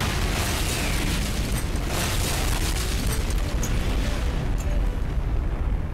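An explosion going off suddenly, then a long, deep rumble.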